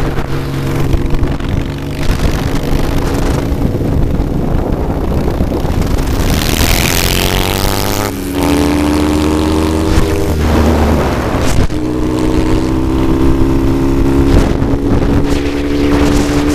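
Motorcycle engine running and revving under way, heard across several cut-together clips, with a stretch of rushing noise about six seconds in.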